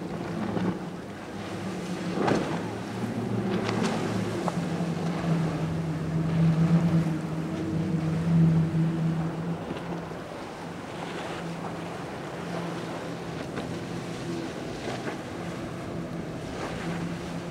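Outboard motors of center-console boats droning as they run past at planing speed, the drone swelling to its loudest about halfway through and easing off, over the rush of hull spray and wake and some wind on the microphone.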